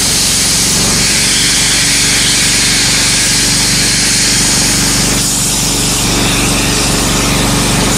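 PyroLance ultra-high-pressure water jet cutting into a solid brick: a loud, steady hiss of the jet, with a low pulsing drone beneath it that does not let up.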